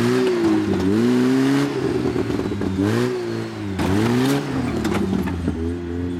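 Off-road trial truck's engine revving up and down repeatedly as the truck crawls over rocks, its pitch rising and dipping several times, with a few sharp knocks.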